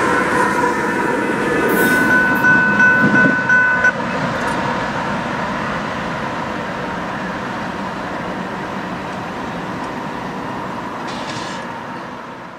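Diesel-hauled empty coal train rolling by on the rails: a steady rumble and rattle of locomotives and empty hopper cars, with thin high squeal tones over it in the first few seconds. The sound drops suddenly about four seconds in, then runs on more evenly and slowly fades.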